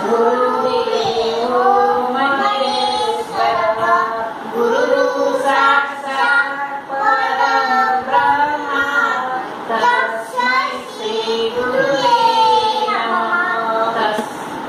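A young girl chanting a shloka, a Sanskrit prayer verse, in a high child's voice, in sung phrases with long held notes.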